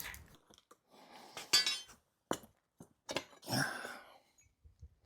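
Freshly cut pieces of steel rebar clinking as they are handled and set down: a few separate metallic knocks, the loudest with a brief ring about a second and a half in.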